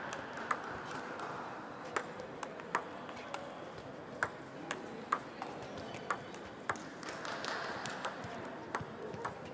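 Table tennis balls clicking against tables and bats at irregular intervals, about a dozen sharp ticks, over the steady murmur of a busy sports hall.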